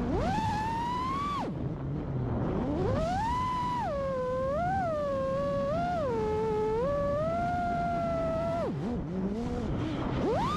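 Freestyle FPV quadcopter's four brushless motors whining, heard from the onboard camera with a rushing noise of air and propeller wash beneath. The pitch climbs and falls with the throttle, dropping sharply twice as power is cut for flips and rising again.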